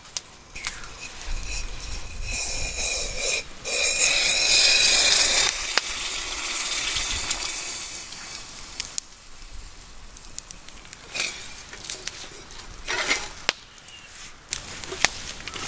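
Just-boiled water hissing and gushing as it is poured from a camp pot for tea, loudest about four to five seconds in. After about eight seconds a wood campfire crackles, with scattered sharp pops.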